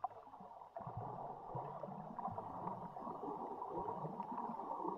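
Underwater ambience picked up by an action camera resting on the reef floor: a steady, muffled wash of water noise, a little louder from about a second in.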